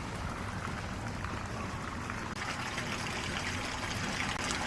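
Steady rush of running water, a little stronger from about halfway through.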